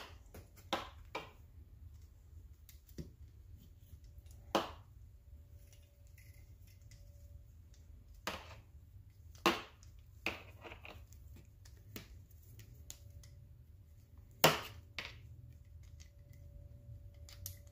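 Scattered sharp clicks and knocks of a screwdriver and small carburetor parts being handled on a workbench as the electric choke is unscrewed from an ATV carburetor, about a dozen spread out, over a steady low hum.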